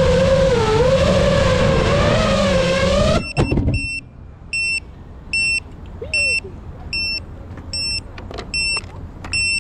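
FPV quadcopter's motors whining with a wavering pitch, cutting off suddenly about three seconds in as the drone lands and stops. Short high electronic beeps then repeat about twice a second.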